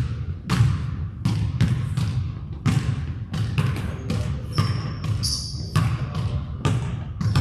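A basketball being dribbled on a hardwood court, about two bounces a second at an uneven pace, each bounce echoing in the gym. There is a brief high squeak about five seconds in.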